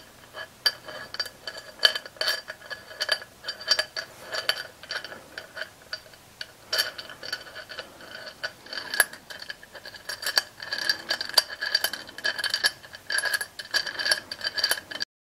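Small metal parts handled against aluminium extrusion profiles: an M6 machine screw, washers and T-slot nuts clicking and clinking on the profile and the steel bench. Irregular light taps, each with a faint metallic ring.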